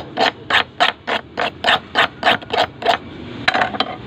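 Rhythmic scraping strokes worked by hand, about three a second. They stop about three seconds in and are followed by a few sharp clicks.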